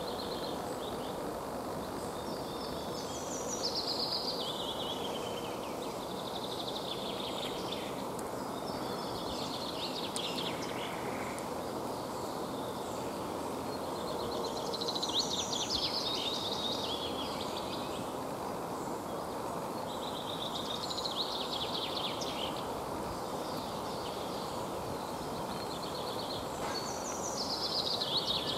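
A songbird singing short phrases that fall in pitch, repeated every few seconds, over a steady background rush.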